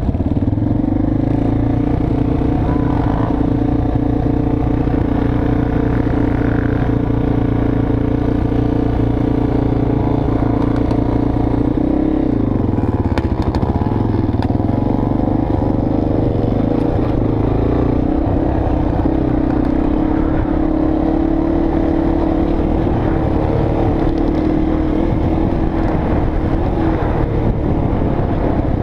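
Dirt bike engine running steadily under the rider while riding. Its note drops about twelve seconds in, then climbs again as the throttle opens back up.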